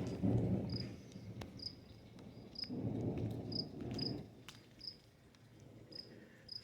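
Thunder rumbling low, easing after the first second and swelling again in the middle, while a cricket chirps steadily about once a second and a few raindrops tick.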